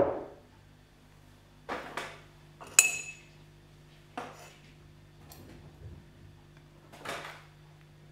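Metal knife and fork knocking, scraping and clinking against a ceramic plate while cutting food, in separate strokes, with one sharp ringing clink a little under three seconds in. A louder knock right at the start.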